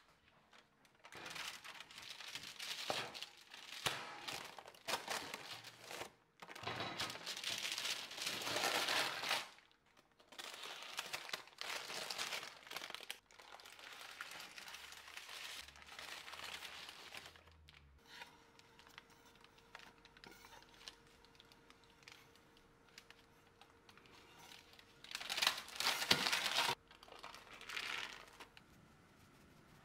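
Crinkling and rustling handling noises in several bursts a few seconds long, with short pauses between them; the loudest pair comes near the end.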